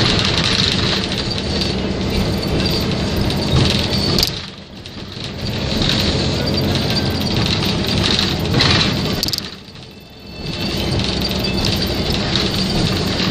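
City bus heard from inside near the front while driving: steady engine and road noise with a low hum. The noise drops away sharply twice, about four and ten seconds in, each time just after a brief sharp sound.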